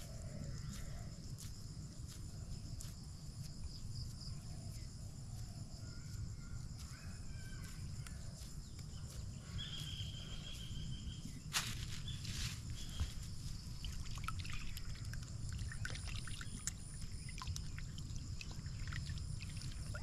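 Outdoor insect chorus with a steady high trilling and a few short bird chirps over a low rumble. A few sharp clicks come a little past halfway.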